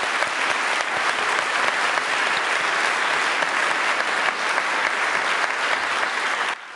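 Audience applause, dense and steady, that falls away sharply near the end.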